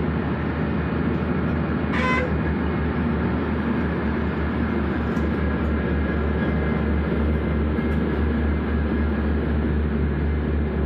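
Scania truck's diesel engine running steadily under way, heard from inside the cab. About two seconds in, a horn gives one short toot.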